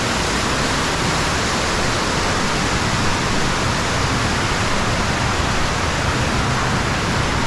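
Underground waterfall pouring steadily inside a cave, a loud, even rush of falling water.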